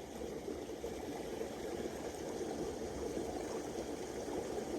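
Steady rush of a flowing stream, even and unbroken.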